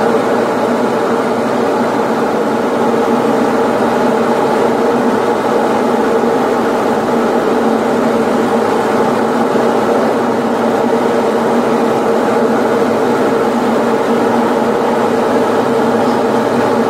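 Steady drone of a Diamond DA40's piston engine and propeller in cruise flight, heard inside the cockpit.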